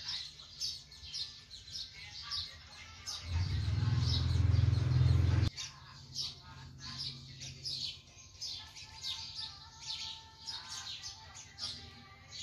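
Small birds chirping over and over, several short calls a second. About three seconds in, a loud low noise comes in and stops abruptly about two seconds later.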